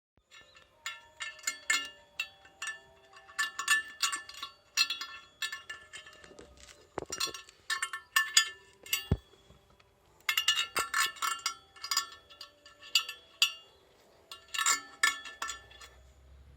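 Repeated bursts of light metallic clinking and rattling, each clink ringing briefly, coming in clusters of a second or two with short pauses between them, plus a couple of single sharper knocks, heard as an abnormal rattle.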